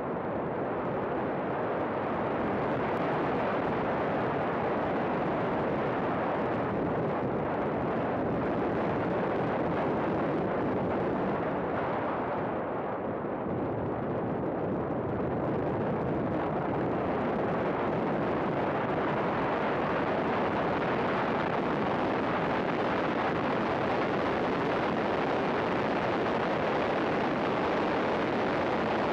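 Race car at speed heard from a camera mounted on its outside: a dense rush of wind buffeting the microphone over the running engine and tyres. The rush eases a little about twelve seconds in as the car slows for a corner, then builds again and holds as it accelerates back up to high speed.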